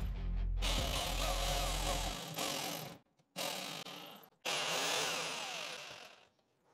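Forever FT70JS electric jigsaw running and cutting through a wooden board. The saw noise stops and restarts abruptly three times before cutting off near the end.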